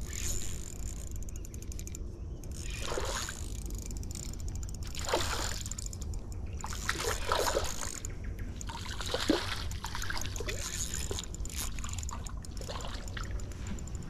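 A hooked fish splashing at the surface of the water as it is reeled in: several short separate splashes about two seconds apart, over a steady low rumble.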